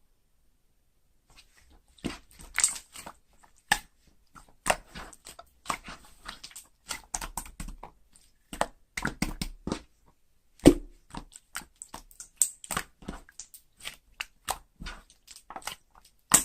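Slime being pressed and squished by hand, giving an irregular run of sticky clicks and pops, with a sharper pop about ten seconds in and another right at the end.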